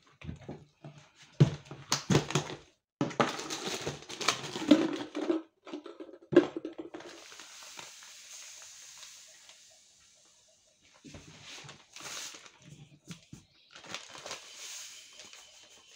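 Granulated sugar poured from a plastic bag into a plastic measuring jug: a steady hiss of falling grains for a few seconds near the middle. Before it come knocks, clatter and crinkling of the bag and containers being handled.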